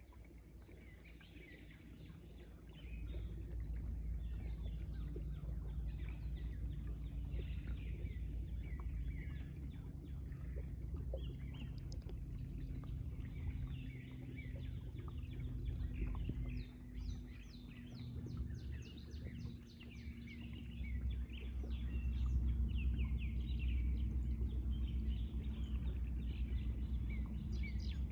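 Several birds singing and calling, with runs of quick repeated notes a little past halfway and again near the end, over a steady low rumble.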